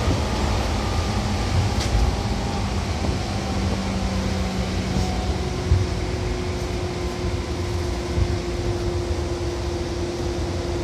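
Seibu 2000 series electric train heard from inside the car while running: steady rolling noise with a low motor and gear hum that drops slightly in pitch at first, and a few short knocks from the track.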